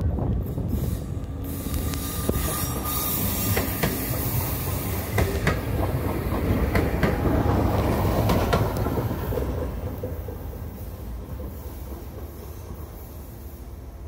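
A Newag Impuls EN63A electric multiple unit passes close by, its wheels clicking over the rail joints. The sound is loudest about eight seconds in, then fades as the train moves away.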